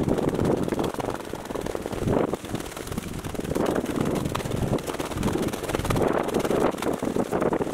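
Wind buffeting an outdoor microphone: a steady low rumble that swells and eases.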